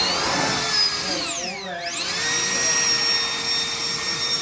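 Cordless battery hair dryer running on an 18 V Makita battery, its fan motor whining over a rush of air. The whine winds down about a second and a half in, then spins back up and holds steady.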